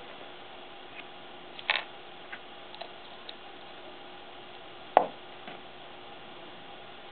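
Small clicks and a brief rustle of things being handled on a wooden worktable, then one sharp knock about five seconds in as a small glass bottle is set down on the wood. A faint steady hiss runs underneath.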